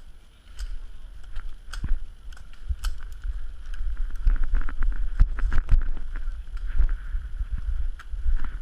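Wind buffeting the camera microphone as a rumble that grows stronger about halfway through, with scattered sharp clicks and knocks from movement or the gear.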